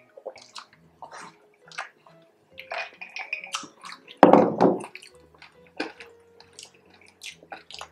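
Close-miked eating: wet chewing and crunching of crispy pork belly in short bursts, with gulps of orange juice at the start and one louder burst about four seconds in, over faint background music.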